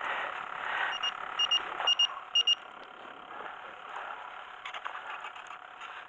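Short high electronic beeps, a single one followed by three quick double beeps, about a second in, over a steady hiss of wind and sea.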